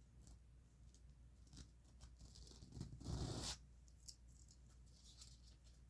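A knife blade scraping once across a sharpener in a single half-second stroke about three seconds in, amid faint small clicks of handling.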